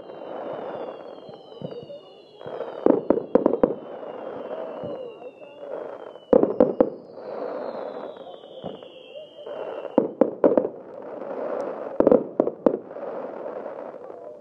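Fireworks display: clusters of sharp bangs every few seconds over continuous crackling, with several long whistles that fall in pitch over two or three seconds each.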